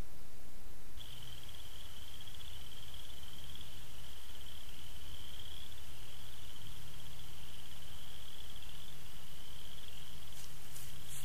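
A continuous high-pitched animal trill on one slightly wavering pitch, finely pulsed, starting about a second in and running on without a break, over a faint low hum.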